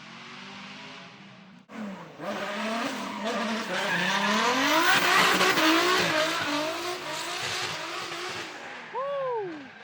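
Drift car engine revving hard, its pitch rising and falling with the throttle, over tyres squealing through a slide. The sound cuts off suddenly about two seconds in and comes back much louder. Near the end the engine pitch drops steeply as the revs fall.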